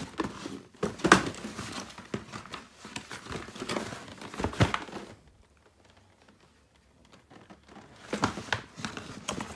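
Crinkling and rustling of shoe packaging being handled, with a few light knocks; it stops for about three seconds in the middle, then starts again.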